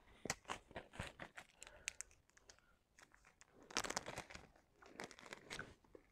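Clear plastic cover film on a diamond-painting canvas crinkling as it is handled, with a string of small sharp clicks and taps, busiest in the first couple of seconds and again in a burst about four seconds in.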